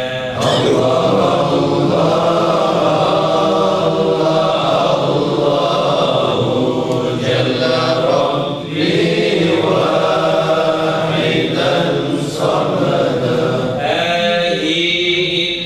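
A group of men chanting a devotional recitation together in unison, in long melodic phrases broken by a few short pauses for breath.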